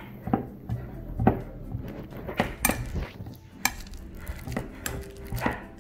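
Metal spoon mashing ripe bananas in a glass mixing bowl. It clinks and knocks against the glass in an irregular rhythm, about two knocks a second.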